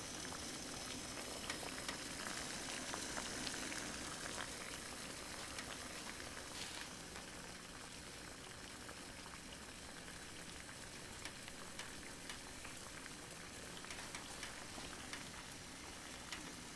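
Water at a full boil in a titanium cup over a burning Super Cat alcohol stove, its ring of jets fed by denatured alcohol. The sound is a faint, steady hiss with scattered small ticks and pops.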